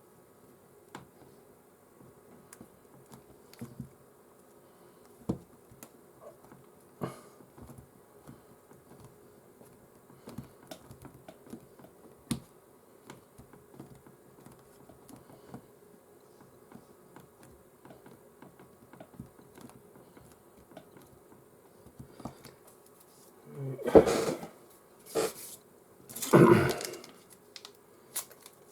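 Scattered light taps and clicks of hands handling a phone and small tools on a workbench over a faint steady hum, then two louder rustling scrapes near the end.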